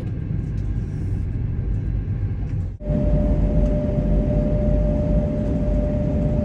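Steady low rumble of a moving vehicle. About three seconds in it cuts off briefly and comes back louder, with a steady high hum on top.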